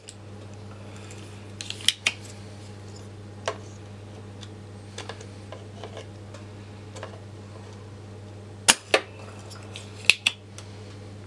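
Spring-loaded desoldering pump (solder sucker) snapping as it is fired at a lifted solder joint on a circuit board: sharp loud clicks in quick pairs, about three times, with fainter ticks between. The solder is not clearing from the joint. A steady low hum runs underneath.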